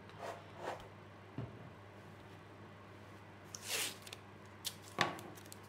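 Hands handling thin wood veneer sheets and blue painter's tape on a workbench while stitching the veneer seams: a few quiet rustles and scrapes, a brief low knock about a second and a half in, a longer rasping tear of tape near four seconds and a sharp tick about five seconds in.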